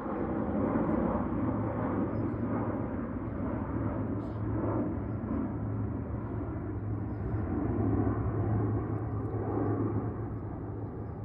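Aircraft flying overhead: a steady rumble with a constant low drone under it, swelling and easing slightly.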